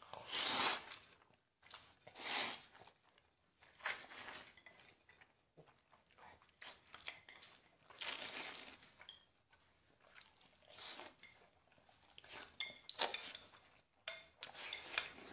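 Noodles in sauce slurped up in a series of noisy sucks, each about half a second to a second long, with the clink of chopsticks on a china plate.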